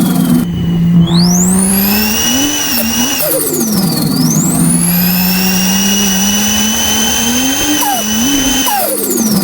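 Turbocharged Dodge Ram engine revving, its turbo whistle sweeping up into a high steady whine, dipping about four seconds in and falling away near the end as the throttle comes off. Short sharp puffs come between revs, about three and eight seconds in.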